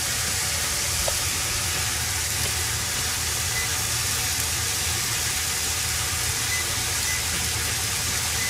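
Steady hiss of cooking on a Panasonic induction hob, with a low hum beneath, and a few faint short beeps as the hob's control buttons are pressed.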